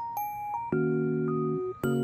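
Light background music: a few bell-like melody notes, then a held chord on a chiming keyboard, with another chord starting near the end.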